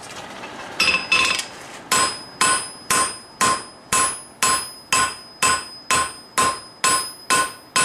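Hammer blows on steel at the anvil, each with a short metallic ring. Two blows come about a second in, then a steady run of about two a second that quickens a little near the end, forging the steel out to an even thickness.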